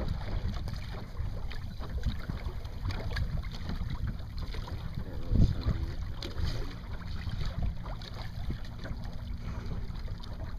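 Wind buffeting the microphone, a gusty low noise, with water splashing along the hull of a small sailboat under way. The strongest gust comes about five seconds in.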